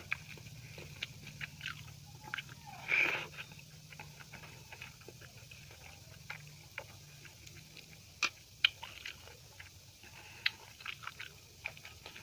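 Close-up chewing and eating mouth sounds: scattered small smacks and clicks, one louder, fuller mouth sound about three seconds in, and a few sharp clicks a little after eight seconds.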